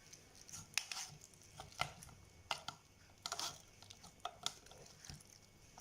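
Turnip being squeezed and pressed in a kitchen strainer to press out its juice: faint, irregular clicks and soft squishes.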